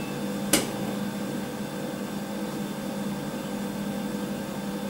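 Steady low hum of kitchen room tone, with one sharp click about half a second in.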